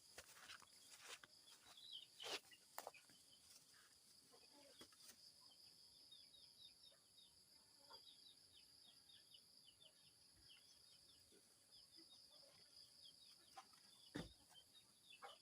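Faint rural yard ambience: many quick, faint bird chirps over a steady high drone, with a few soft knocks.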